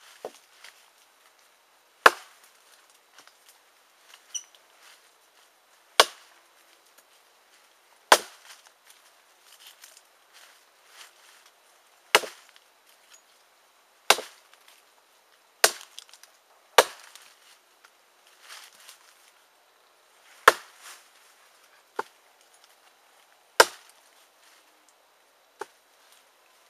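Cold Steel Gurkha Kukri blade chopping into a log: about a dozen sharp chops, spaced unevenly one to four seconds apart.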